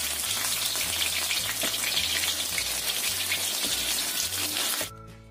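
Cornstarch-coated chicken pieces frying in a shallow layer of oil in a wok, a dense steady sizzle and crackle, late in the fry with the coating turning golden and dry. The sizzle cuts off suddenly near the end, leaving soft background music.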